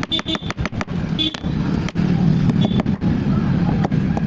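Rapid light hammer taps, several a second, knocking the worn pulley off the shaft of an HP LaserJet M1005 printer's motor through a metal strip. A low steady rumble runs underneath and grows louder about a second and a half in.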